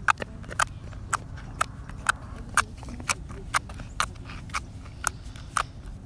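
Footsteps on hard pavement: sharp, even steps about two a second, over a steady low outdoor rumble.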